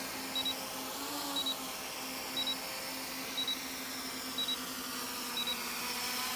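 An electric quadcopter's motors and propellers hovering, a steady hum that wavers slightly about a second in. A faint short double beep repeats about once a second.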